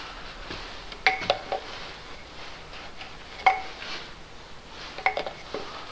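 A handful of sharp metallic clinks, each ringing briefly at the same pitch: three quick ones about a second in, one near the middle and three more near the end, as parts are fitted into the oil filter housing.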